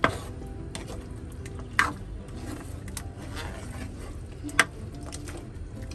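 Thick chicken caldereta sauce sizzling and simmering in a nonstick frying pan as a spoon stirs through it. The spoon scrapes and knocks sharply against the pan three times.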